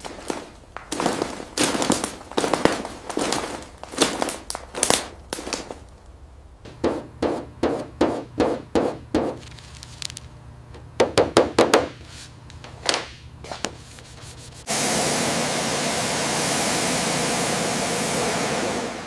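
A rapid, irregular series of sharp knocks and clanks in bursts. About three-quarters of the way in, a steady loud hiss starts suddenly and stops near the end.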